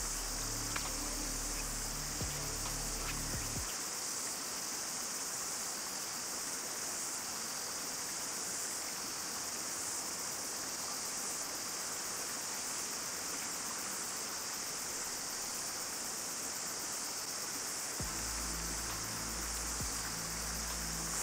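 Steady chorus of cicadas singing over the hiss of river water. Background music with low tones plays for the first few seconds, drops out, and comes back near the end.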